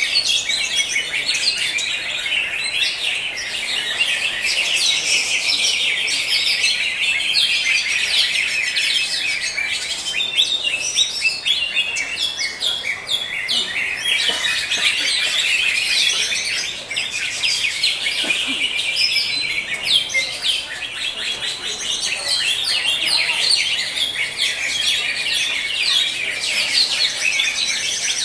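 Cucak hijau (green leafbird) singing a long, unbroken run of quick, varied high-pitched chirps and trills.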